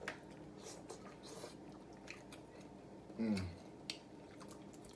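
Close-up eating sounds from a seafood boil: wet chewing, smacking and small clicks of shells and fingers. About three seconds in comes a short low hum from one of the eaters.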